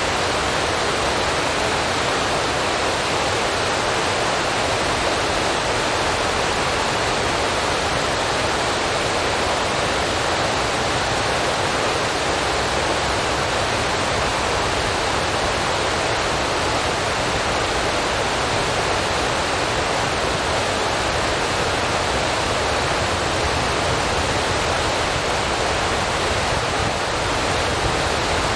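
Steady, even rushing noise like static or falling water, with no tone, rhythm or change in level.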